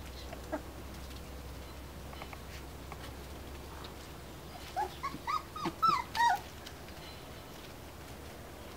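A dog whining: about seven short, high-pitched whines in quick succession, each rising and falling in pitch, over about a second and a half past the middle.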